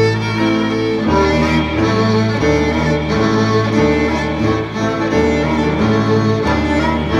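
Recorded music: bowed strings, violin and cello, playing sustained chords over low notes that change about every half second to a second.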